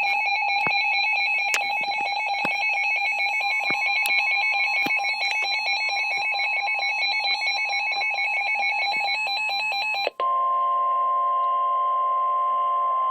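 A NOAA Weather Radio receiver's alert alarm sounding a fast repeating electronic pattern for about ten seconds, then switching abruptly to the steady 1050 Hz Weather Radio warning tone alone. The tone signals that an urgent warning broadcast is about to follow.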